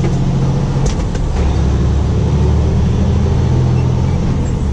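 Semi truck driving, heard from inside the cab: a steady low engine drone with road noise.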